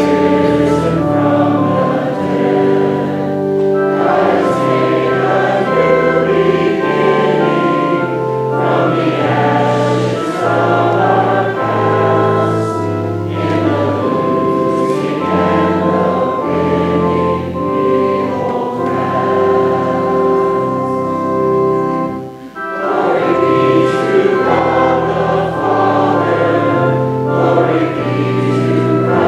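Church congregation singing a hymn with organ accompaniment, the organ sustaining steady chords under the voices. There is a short break between phrases about three-quarters of the way through.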